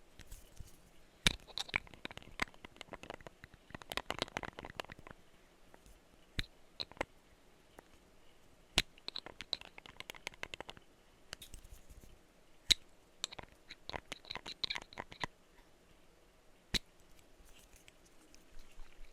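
Tapping on a perfume bottle: bursts of quick light taps, with single sharper taps scattered between them.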